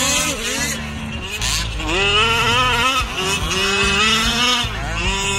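Large-scale RC off-road trucks racing on dirt, their motors whining up and down in pitch as the drivers open and ease the throttle, with more than one motor heard at once.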